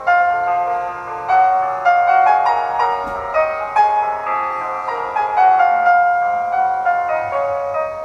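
Background music: a slow melody of single struck notes in a high register, each ringing on as the next sounds.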